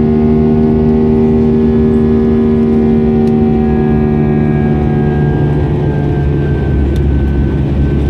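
Airbus A320's IAE V2500 turbofan engines heard inside the passenger cabin during the climb: a steady rumble carrying a hum of engine tones that slowly drift down in pitch, some of the higher tones fading out about two-thirds of the way through.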